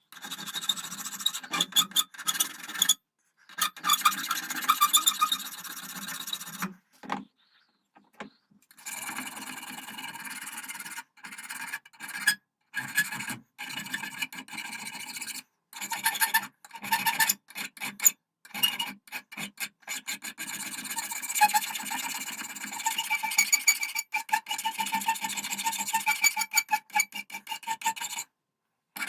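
Hand file rasping over brass in repeated strokes, with a faint metallic squeal, stopping briefly several times.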